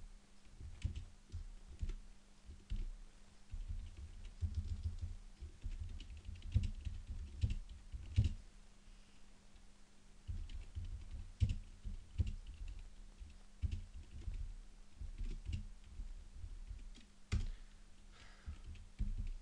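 Typing on a computer keyboard in irregular runs of keystrokes, heard mostly as dull thumps with lighter clicks, with a short pause about halfway. A steady low hum runs underneath.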